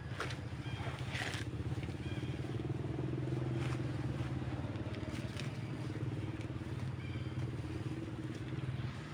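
A low engine hum runs steadily, swelling a little about three to four seconds in, with a few brief rustles over it.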